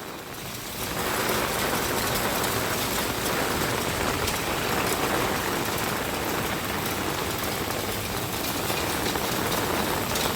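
Heavy typhoon rain falling steadily, a dense even hiss that grows louder about a second in.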